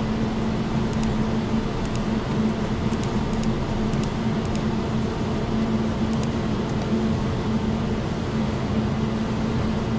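Steady machine hum with hiss, holding one even tone throughout, with a few faint clicks.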